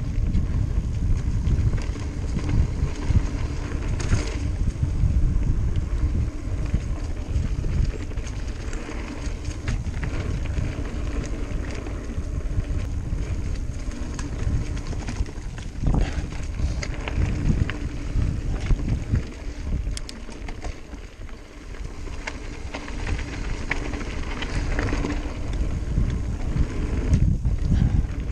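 Mountain bike rolling fast down a dirt and rocky trail: tyres rumbling over the ground, with sharp clunks and rattles from the bike over roots and rocks, under heavy wind buffeting on the microphone. It eases briefly a little past the middle, then picks up again.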